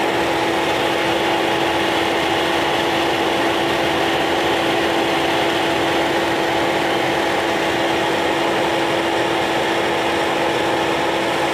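Both electric cooling fans of a VW Jetta 2.0 TDI, the engine radiator fan and the AC condenser fan, running with the engine off and only the ignition on: a steady rush of air with a constant hum. Running with the ignition on alone is the fault, which the mechanic puts down to the engine control module.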